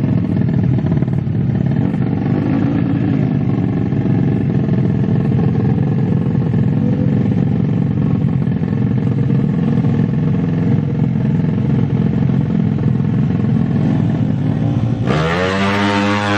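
Motorcycle engines running, loud and steady, with a rough, dense engine noise. About 15 s in the sound changes abruptly to a single pitched tone that wavers up and down.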